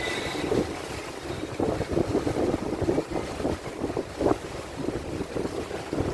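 Wind buffeting the microphone aboard a boat under way at sea, in irregular gusts over a steady rush of engine and water noise.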